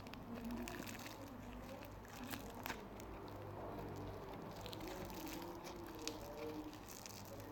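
Slime being squeezed and poked by hand: faint squishing with scattered small crackling clicks.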